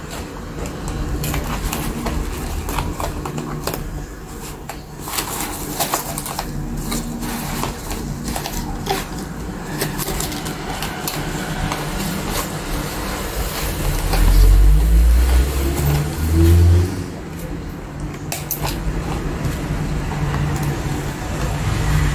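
Cardboard and plastic doll packaging being handled as a doll is freed from its box insert: repeated short clicks, scrapes and rustles. Under it is a steady low rumble that swells for a few seconds in the second half.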